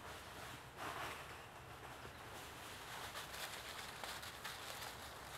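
Dry fallen leaves rustling and crackling faintly as a dog moves through them, with a louder burst of crackling about a second in.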